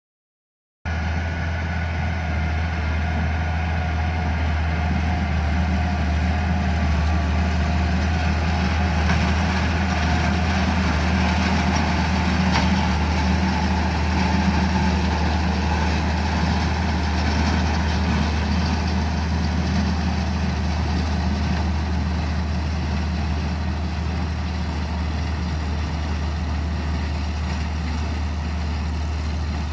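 International Harvester tractor engine running steadily while it pulls a square hay baler, starting about a second in.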